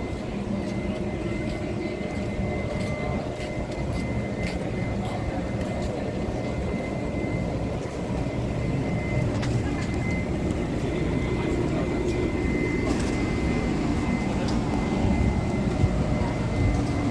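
Diesel-hauled train running with a steady low rumble that slowly grows louder, with a thin steady high whine throughout.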